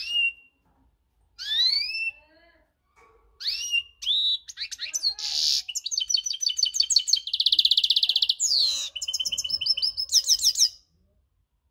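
Caged European goldfinch singing: rising whistled notes at first, then fast twittering trills and a buzzy rattle in the middle, stopping shortly before the end.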